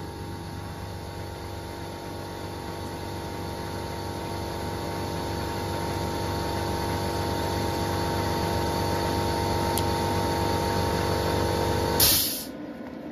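Compressed air hissing steadily through the Bestarc BTC500DP plasma cutter's torch during an air test, with a steady hum under it, slowly growing louder. About twelve seconds in it ends with a short, sharp blast of air and then drops off.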